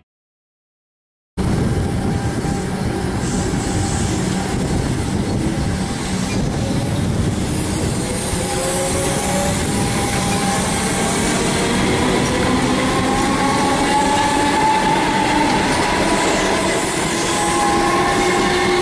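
Melbourne suburban electric multiple-unit train running along a station platform: a steady rumble of wheels on rail with a whine that rises and falls in pitch. It cuts in suddenly after about a second and a half of silence.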